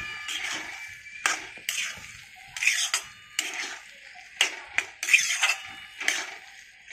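A metal spatula scraping and knocking against a black iron kadhai in about a dozen irregular strokes while beans in a thick masala are stirred, with a faint metallic ring on some strokes.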